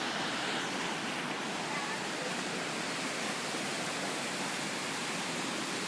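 Flooding Bear Creek running high and fast over its banks: a steady rushing of water.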